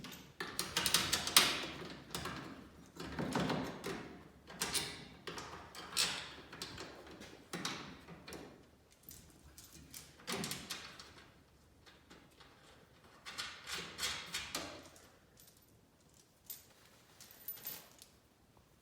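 Irregular clanks, knocks and rattles of metal hardware being handled, as torsion spring end-bearing brackets are fitted against the wall.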